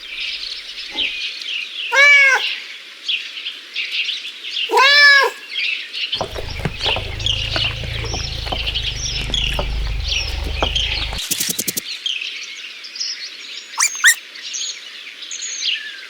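A cat meowing twice, about two and five seconds in, each call rising then falling in pitch, over constant chirping of small birds. A low rumble runs through the middle and cuts off suddenly.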